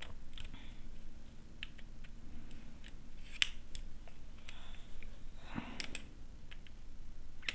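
Light clicks and scrapes of a screwdriver on the terminal screws of a plastic switch board as a wire is fastened. A sharper click comes about three and a half seconds in, and a short scrape just before six seconds.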